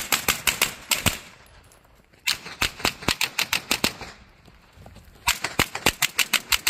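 Dissident Arms KP9, a 9mm AK-pattern carbine, fired in three quick strings of shots, several shots a second, with pauses of about a second between strings.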